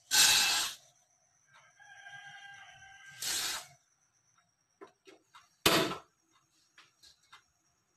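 Uncooked rice poured into an aluminium wok, a loud rattling hiss of grains on metal at the start and again, shorter, about three seconds in. Between the two pours a rooster crows in the background. Near the end a few small clicks and a short sharp burst come as the gas stove's knob is turned.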